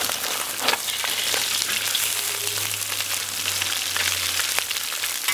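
Small crucian carp frying in hot oil in a large wok, a steady sizzle with scattered crackles and pops. A metal spatula scrapes and knocks now and then as the fish are turned.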